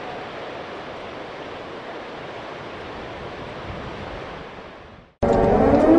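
Steady rush of floodwater pouring through the Big Bend Dam spillway, fading out about five seconds in. Then a siren starts abruptly and winds up, rising in pitch; it is the loudest sound.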